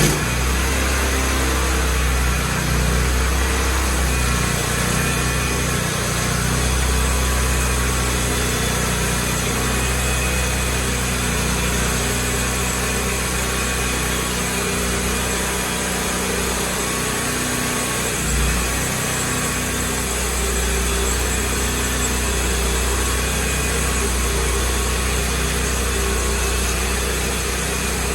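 Portable sawmill's engine running steadily while slabbing a large maple log.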